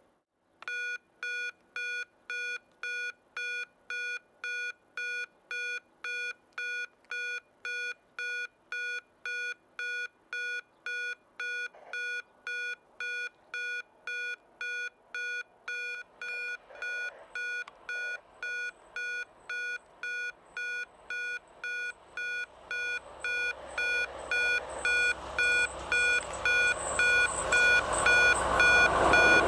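Level crossing warning signal beeping steadily, a bit under two identical electronic beeps a second. Over the last several seconds a PKP SU45 diesel locomotive comes up and grows steadily louder beneath the beeps.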